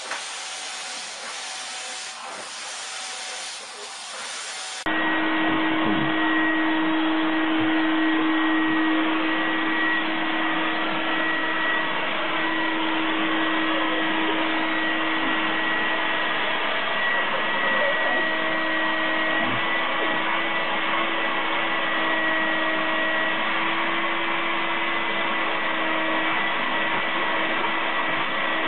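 Vacuum cleaners running steadily, their nozzles held against a cat's fur: first a hissing suction, then about five seconds in a different machine with a steady hum and a high whine.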